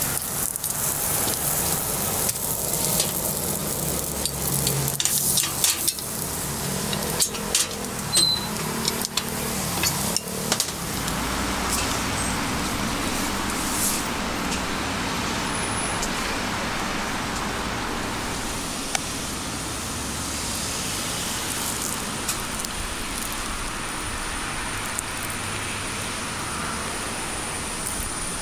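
Batter sizzling in hot iron fish-shaped bungeoppang molds, with sharp clacks scattered over roughly the first ten seconds. After that comes a steady hiss of street noise with traffic.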